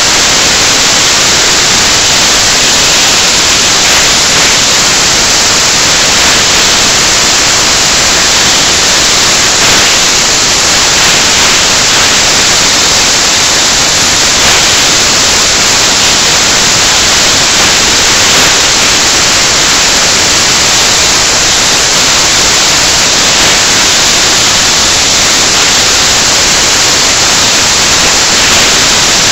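Loud, steady static hiss that drowns out everything else, with no distinct sounds standing out from it.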